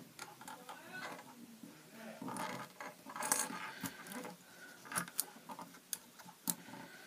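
Close handling noise: small clicks, taps and scratching of wooden pencils, rubber bands and a plastic pen lid being worked by hand, with a few sharper clicks in the second half.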